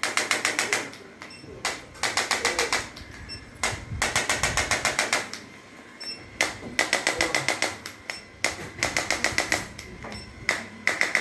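Handheld chiropractic adjusting instrument firing rapid trains of sharp clicks, about ten a second, in bursts of under a second that repeat every second and a half or so, each opened by a single click.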